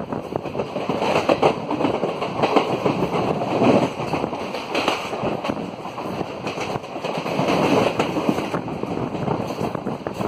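A passenger train's wheels clattering over rail joints and points at speed, with irregular sharp clicks and knocks over a constant rushing of wind and running noise. Heard from an open coach doorway.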